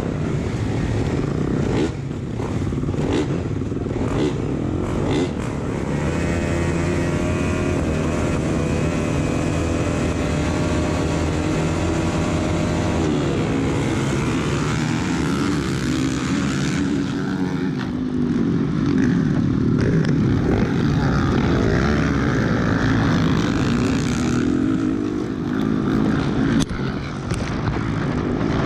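Motocross bike engines at a race start, heard from on board one bike: engines held at a steady high rev behind the starting gate, then running hard with the pitch rising and falling as the pack accelerates away up the track.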